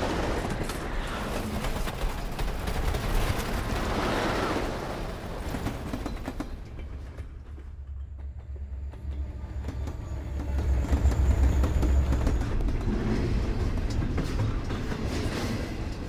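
Film sound effects of a steam train running along its rails at speed: a dense rail noise over a heavy low rumble that swells loudest about two-thirds of the way through.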